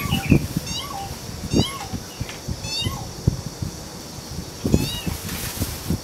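Pheasant-tailed jacana giving its mewing, cat-like call about four times, each short note bending in pitch and falling away at the end.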